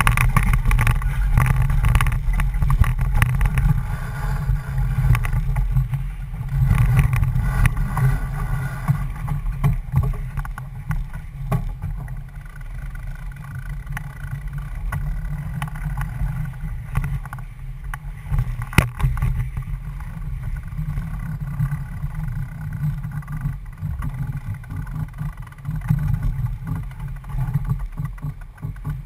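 Wind and water noise aboard a C&C 31 sailboat heeled under sail: a steady rush of water along the hull with wind gusting on the microphone, and a few sharp knocks.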